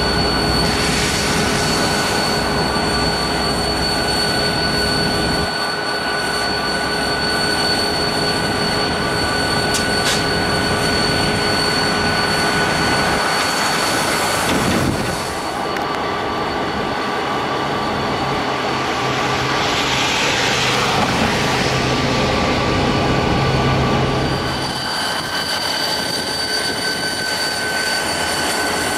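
Diesel locomotives of the EMD SD40 family, with 16-cylinder two-stroke 645 engines, running past at slow speed, with a steady high-pitched wheel squeal from the rolling train.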